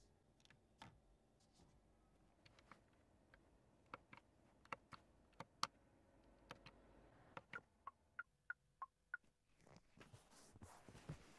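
Soft clicks of an ORA Lightning Cat's cabin controls and console toggle switches being pressed one after another. A quicker run of short ticks comes about eight seconds in, and a brief rustle follows near the end.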